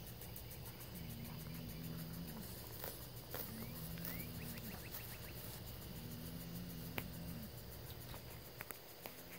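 A bull bellowing over and over, a low drawn-out call that swells, holds and falls away, about every two and a half seconds. It is an agitated bull calling to another bull across a fence.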